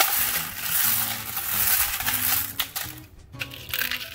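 Glass marbles clattering and clinking against each other and the aluminium foil tray as a hand pushes and spreads them among river stones. The clatter dies down about three seconds in, leaving a few separate clicks.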